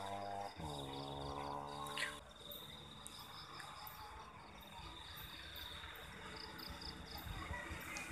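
A small two-stroke motorcycle engine, the stock Yamaha V80's, drones at idle, drops in pitch about half a second in and stops after a click about two seconds in. Night insects then chirp: a steady high trill with evenly repeated chirps.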